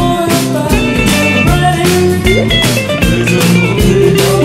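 Background music: a guitar-led rock song with drums keeping a steady beat.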